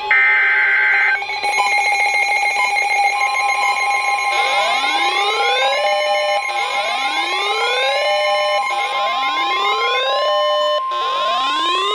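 Emergency alert tones from weather radio: a burst of warbling SAME header data ends about a second in, then steady alert tones, including the long 1050 Hz weather-radio warning alarm tone from about three seconds in. From about four seconds in, a repeating rising electronic whoop, about every two seconds, sounds over it.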